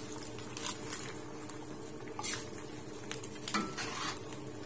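Metal spatula stirring and scraping through chicken and skin crackers in a stainless steel wok, in several separate strokes, over a faint sizzle of the oily, reduced sauce.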